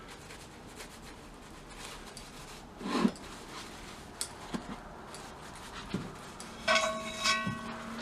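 Paste wax being rubbed onto a pair of steel needle nose pliers, with a knock about three seconds in, a few light clicks, and a brief high squeak near the end.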